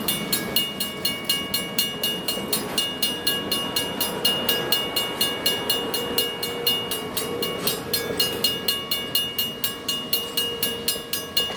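Railroad crossing warning bell ringing rapidly, about five strokes a second, over the low rumble of a passing train.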